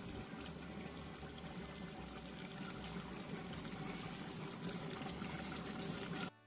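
Beef curry bubbling steadily in a large cooking pot.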